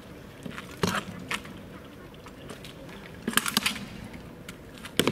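Two reenactment gladiators sparring on paving stones: scuffing footsteps and the knocks of their gear, with two sharp knocks in the first second and a half and a quick flurry of clatters about three and a half seconds in.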